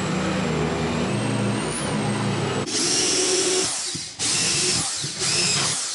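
Electric drill boring screw holes into wooden floorboards. The motor runs steadily with a high whine at first, then comes louder, noisier drilling in several spells with short breaks between them.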